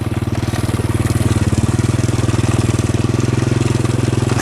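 Small motorcycle engine running steadily with an even, fast putter and no change in speed.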